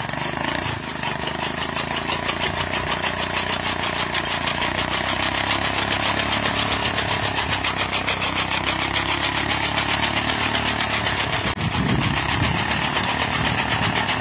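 Motorcycle engine running steadily with an even pulsing beat, its spinning rear wheel driving a makeshift fan for winnowing grain.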